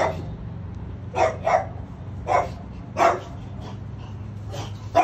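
A dog barking, about six short, sharp barks spaced irregularly across a few seconds, over a steady low hum.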